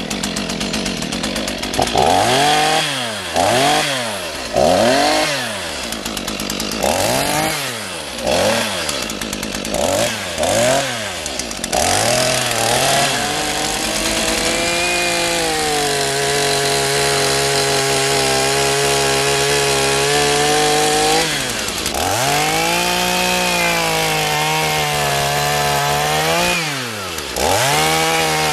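Stihl MS 172 chainsaw's stratified two-stroke engine revved in a string of quick throttle blips, then held at high speed as the chain cuts into a log. It drops back twice later and revs up again.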